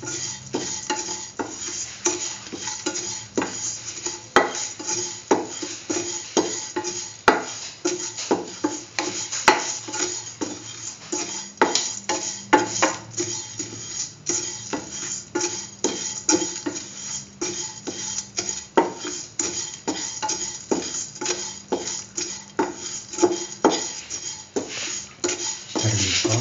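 A spatula stirring vermicelli and cardamom pods in ghee in a steel pan, scraping and clinking against the metal in irregular strokes, two or three a second.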